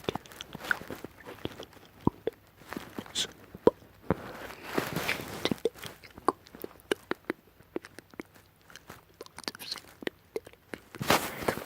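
Close-miked ASMR mouth sounds: a run of wet, irregular clicks and smacks of lips and tongue, with a few breathy exhales about halfway through and again near the end.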